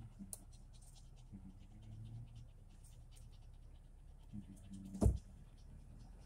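Quiet inside of a slowly moving car: a faint low rumble that swells and fades, with small scratches and clicks from a hand-held phone. A single sharp thump about five seconds in.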